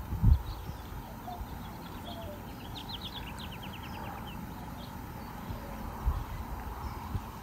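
A bird sings a short, rapid trill of about ten quick notes about three seconds in, over quiet outdoor background with a faint steady hum. A few low thumps come near the start and again near the end.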